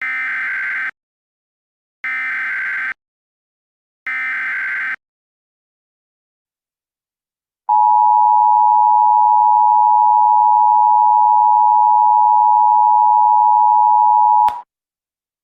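Emergency Alert System SAME header: three buzzy data-tone bursts, each just under a second long and two seconds apart. After a pause, the steady two-tone EAS attention signal sounds for about seven seconds and ends with a click.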